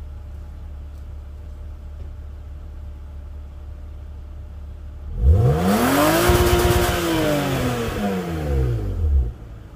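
BMW E36's engine idling, then revved once about five seconds in. The pitch climbs quickly, holds at the top for about a second against the rev limiter, newly raised in the ECU to 7100 rpm, then falls back to idle near the end.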